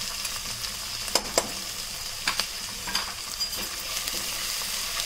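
Crushed ginger and garlic sizzling in hot oil in a nonstick pan, stirred with a silicone spatula: a steady frying hiss with a few sharp clicks over the first three or four seconds.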